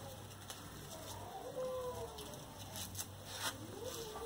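Light clicks of food and utensils being set onto plates. Faint, drawn-out calls sound twice in the background, once in the middle and once near the end, over a low steady hum.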